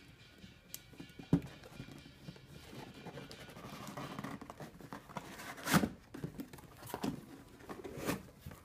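Cardboard robot-chassis box being handled and opened by hand: sharp knocks and scraping of cardboard, loudest about a second and a half in and again near six seconds.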